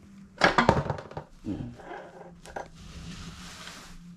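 Metal knocks and clatter as the gears of a GY6 ATV transmission are worked loose from the split case, loudest in a quick flurry in the first second. A short falling voice-like sound follows, then a steady hiss.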